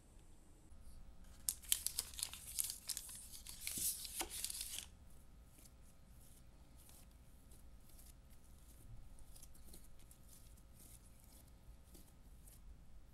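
Sticky, elastic bread dough pulled and torn by hand, a dense run of crackly, snapping tearing noises lasting about four seconds. After that come quieter soft rubbing and brushing sounds as the dough is rounded into a ball on a metal baking tray.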